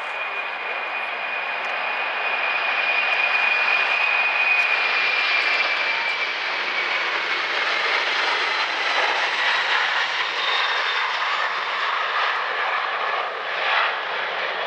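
Boeing 747-400's four turbofan engines at takeoff thrust as the airliner rolls past and lifts off. A steady jet noise grows louder over the first few seconds, with a high whine that drops in pitch about five seconds in as the aircraft passes.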